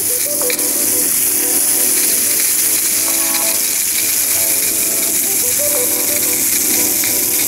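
Steady hiss of mains water spraying from a Kärcher K2 pressure washer's trigger gun and lance, with the hose on and the motor not yet powered, purging air from the system. Background music with a repeating tune plays underneath.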